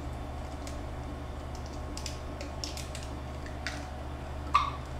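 Eggs being cracked into a plastic mixing bowl: scattered small clicks of shell, with a sharper knock near the end, over a steady low hum.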